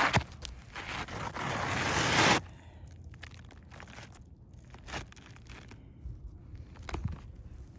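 Asphalt roof shingle being slid back into place under the course above: a gritty scraping that grows louder for about two seconds and stops abruptly, then light taps and handling noises.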